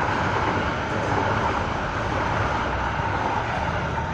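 Steady rumble and rushing noise of a large vehicle passing close by, easing slightly near the end.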